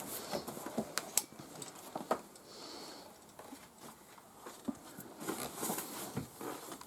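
Light, scattered clicks, ticks and rustling of plastic cot parts being handled and pushed into place.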